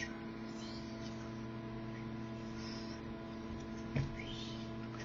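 Steady electrical mains hum, with faint rustles of trading cards being handled and a soft knock about four seconds in.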